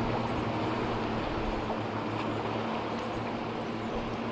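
Boat motor running steadily at low speed: an even, low hum with a wash of noise.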